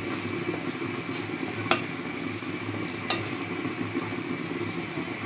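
Wooden spatula stirring a thick ground-beef tomato meat sauce in a nonstick frying pan, with a steady sizzle from the sauce cooking in the pan. Two sharp clicks stand out, one just under two seconds in and another about a second and a half later.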